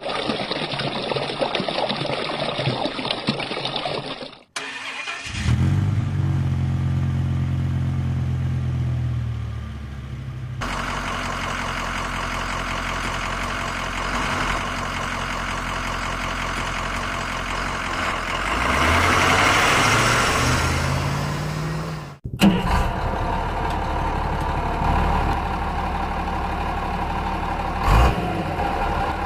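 Running water trickling for about four seconds, then a motor-vehicle engine sound starting up and running, rising and falling in pitch around the middle, followed after a sudden break by more engine running with a single knock near the end.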